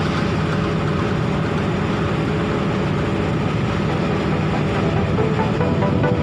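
Steady low rumble of a ship's engine heard from on board, with a constant noisy hiss over it.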